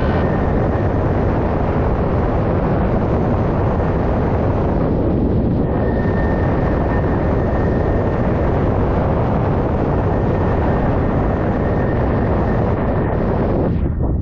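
Steady rushing wind on an action camera's microphone mounted on a windsurf rig sailing on a hydrofoil. A faint, steady high whistle joins about six seconds in.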